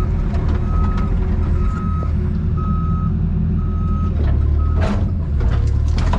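Excavator's diesel engine running under load while its travel alarm beeps steadily, about once a second, as the machine moves on its tracks. A few metal clanks come near the end.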